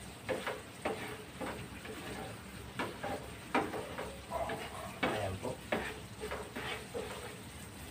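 A spatula scraping and knocking against a frying pan as coconut milk is stirred over a gas burner, cooking down into latik, in irregular strokes about once or twice a second.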